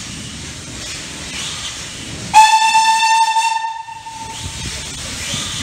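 Steam locomotive's whistle, one steady blast that starts sharply about two seconds in, lasts about two seconds and is the loudest sound here, over a steady hiss. The locomotive is BR Standard Class 4 tank engine 80080.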